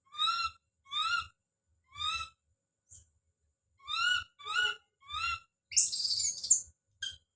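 Baby monkey calling out with a series of short, rising, high-pitched cries, roughly one a second, then a longer, harsher scream, the loudest sound, about six seconds in.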